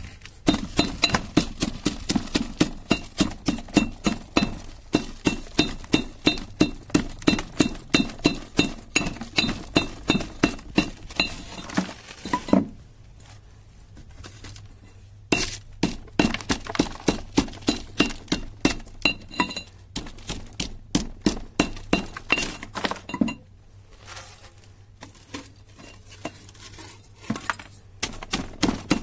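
Iron pestle pounding burnt mobile-phone circuit boards and their chips in a metal mortar: rapid strikes, about three a second, each a clink with a high metallic ring. The pounding breaks off twice for a few seconds, near the middle and again about three quarters in.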